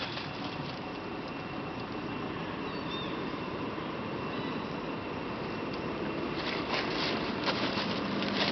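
Steady outdoor background noise with a faint high steady tone running through it, a short chirp about three seconds in, and a few sharp clicks near the end.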